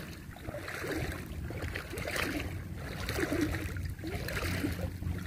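Shallow seawater sloshing around wading legs, in soft swishes that repeat about once a second.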